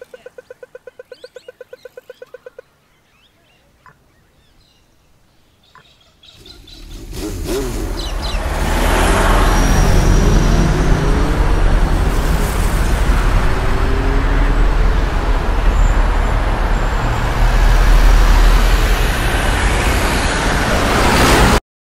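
An intersection crossing signal ticks rapidly for its walk phase, stops about two and a half seconds in, and is followed by a lull with a couple of single slow ticks. From about six seconds in, motor traffic pulls away from the lights: car and truck engines rising in pitch over deep rumble and tyre noise, building to a loud, dense roar that cuts off suddenly near the end.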